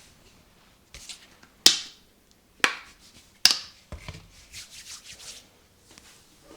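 Hand massage percussion: three loud, sharp hand strikes about a second apart, after a softer one, followed by a stretch of softer rubbing.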